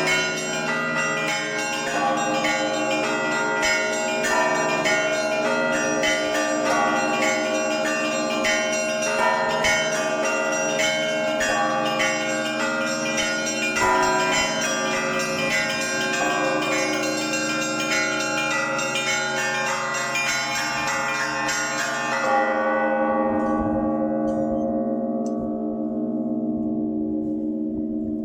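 Cathedral bells rung by hand from the bell tower: a full peal of many bells struck in a lively rhythm, small high bells chiming over the steady hum of the big bells. About three-quarters of the way through the striking stops, and the large bells ring on, slowly fading.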